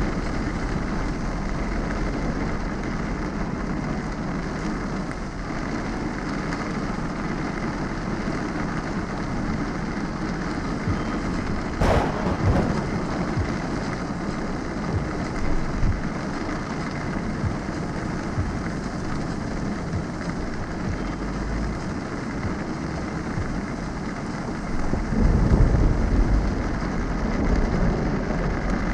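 Heavy rain of a summer thunderstorm, heard from inside a moving car: a steady hiss of rain on the windshield and tyres on the wet road. There is a sharp crack about twelve seconds in, and a louder low rumble near the end.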